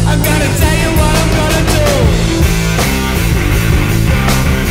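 Stoner rock music: a heavy band with distorted guitars, bass and drums playing loudly, with a wavering melody line over the first couple of seconds and steady drum hits throughout.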